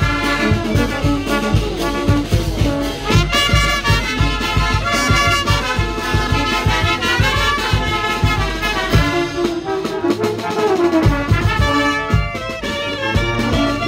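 Huayno dance music from a brass band, trumpets carrying the melody over a steady beat. The low beat drops out briefly about ten seconds in, then returns.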